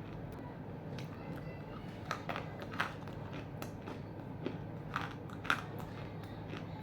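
Half-roasted edible clay chunks being bitten and chewed close to the microphone, giving a few sharp crunches about two to three seconds in and twice around five seconds in. The last crunch is the loudest.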